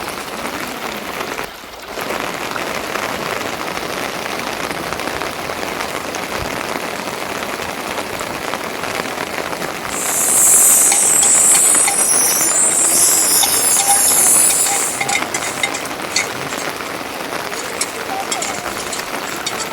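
Steady rain falling, an even hiss throughout, with a louder high-pitched hiss for about five seconds starting midway.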